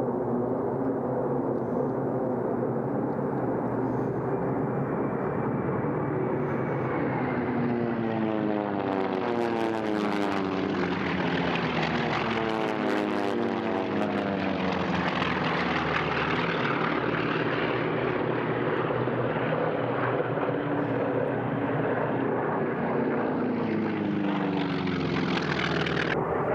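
Propeller-driven piston aircraft flying past, engines running steadily, with their pitch falling as they go by, several times over.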